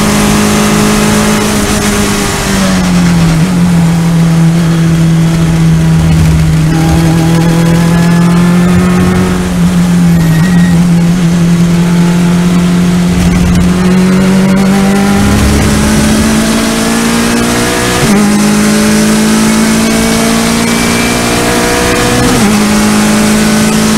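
Porsche race car's engine heard from inside the cockpit, running hard on track. Its pitch drops as it slows and downshifts about two and a half seconds in, holds steady through a corner, then climbs under full acceleration with two upshifts in the last third.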